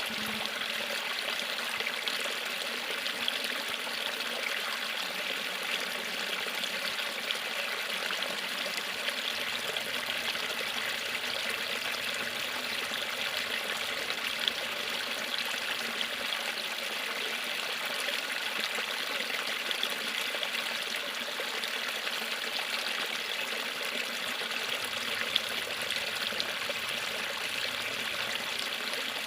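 River water falling and running over a small waterfall in a steady, even rush, with an occasional louder splash.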